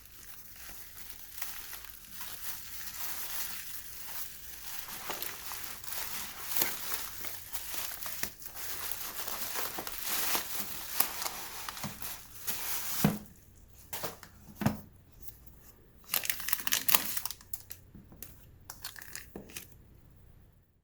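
Packaging crinkling as it is handled and pulled open: dense, continuous crinkling for about thirteen seconds, then a few separate crinkles and light clicks.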